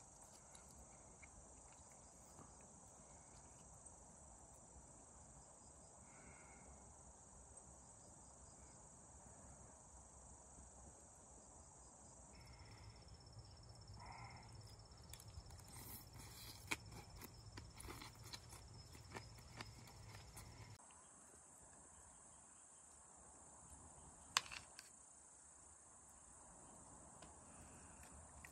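Faint, steady high-pitched insect chorus, which changes abruptly twice. Scattered light clicks and taps come in the middle, and one sharp click about 24 s in.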